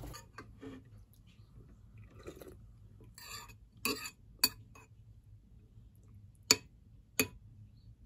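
A metal spoon clinking against a ceramic soup bowl four times, the third clink the loudest, with a few faint scrapes and knocks before them.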